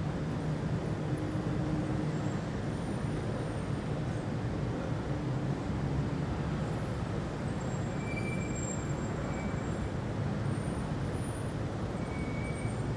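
Dawn city ambience: a steady low rumble of distant traffic, with a few faint short high chirps in the second half.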